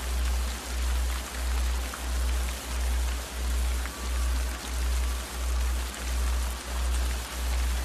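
Steady rain ambience under a deep, low tone that swells and fades in even pulses about one and a half times a second.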